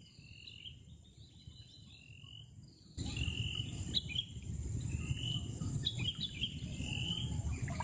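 Water pouring and spraying off a fishing lift net as it is hoisted out of a flooded river: a low rushing noise that comes in suddenly about three seconds in. Repeated high chirping from birds and insects runs throughout.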